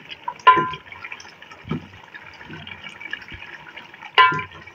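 Beef in yogurt and spice masala bubbling and sizzling in a pot as a wooden spoon stirs it, with two sharper scrapes of the spoon against the pot, about half a second in and near the end.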